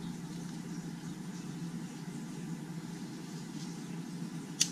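A single sharp click near the end: the lens locking into the Canon EOS 80D's EF-S bayonet mount as it is twisted home. Under it is a steady low background hum.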